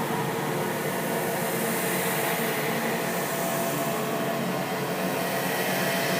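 Steady, noisy drone with a few faint held tones underneath, a horror ambience sound effect.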